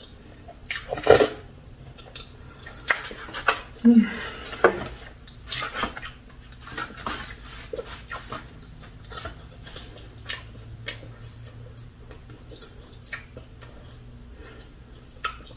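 Close eating sounds of fufu and okra soup eaten by hand: short wet mouth smacks and clicks, with light knocks against the bowls and foam takeout box. The sharpest clicks come in the first few seconds, then they grow softer and sparser.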